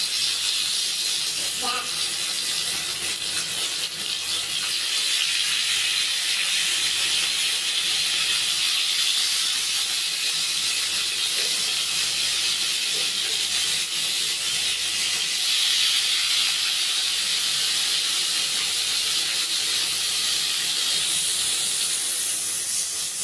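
Tuna slices frying in hot oil in a pan: steady sizzling.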